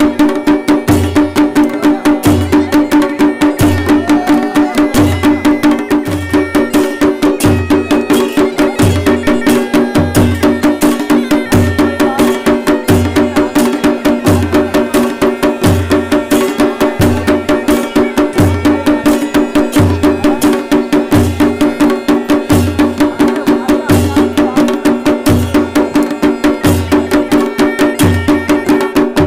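Kumaoni chholiya band music: a masakbeen (bagpipe) plays a wavering melody over a steady drone, with an even drumbeat a little over once a second and sharp clicking percussion.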